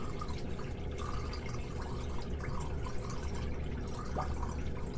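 Water pouring and gurgling steadily down the standpipe drain of an aquaponics flood-and-drain grow bed. The siphon is running, pulling the bed's water down into the tank below.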